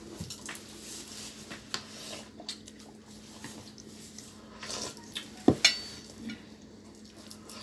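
Eating utensils clinking against stainless steel and ceramic bowls during a meal: scattered light clicks and taps, with two sharper clinks about five and a half seconds in, the second ringing briefly.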